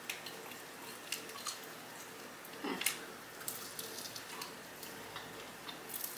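Close wet mouth sounds of biting and chewing meat off a seasoned chicken wing: scattered soft clicks and smacks, the loudest a little before halfway through.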